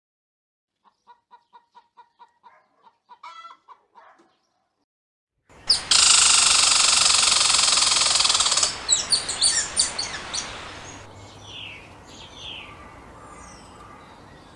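Chickens: a run of short soft clucks, then after a brief pause a loud harsh outburst lasting about three seconds that breaks into short repeated calls and fades into fainter chirps.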